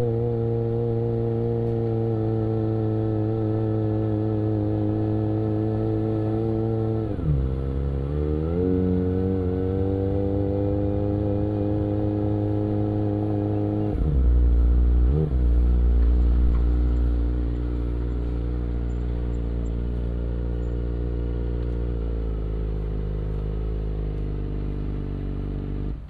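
Kawasaki Ninja ZX25R's inline four-cylinder engine, through an aftermarket Akrapovic exhaust, running at steady revs under way. About seven seconds in the revs dip and climb again; around fourteen seconds the note drops lower and gets louder, with a quick break in it a second later.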